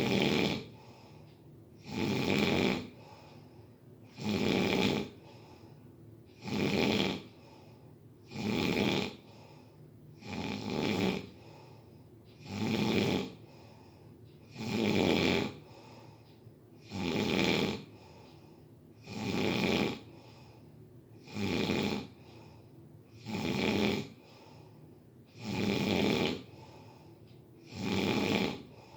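Steady, regular snoring: one snore roughly every two seconds, each under a second long, about fourteen in a row with quiet breathing gaps between.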